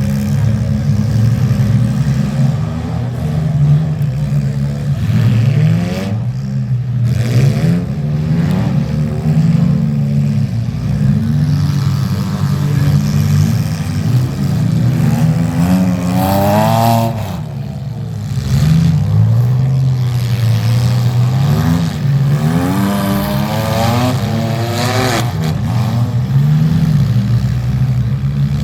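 Demolition derby car engines running and revving up and down during a heat, several at once, with sharp surges of revs.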